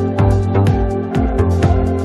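Electronic background music with a steady beat and sustained bass notes.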